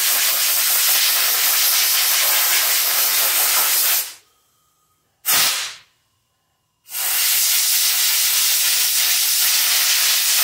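Compressed-air blow gun hissing as it blows dirt out of a lawn mower's foam air-filter pre-filter: a long blast that stops about four seconds in, a brief burst a second later, then another long blast from about seven seconds in.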